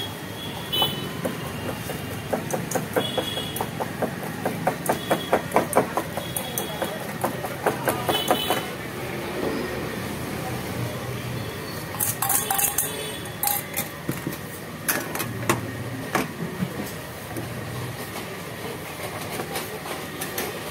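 A fork beating an egg, onion and chilli mixture in a stainless steel bowl, a rapid rhythmic clinking at about five strokes a second. It stops, and is followed by a few metal clatters as the bowl and spatula meet the iron frying pan.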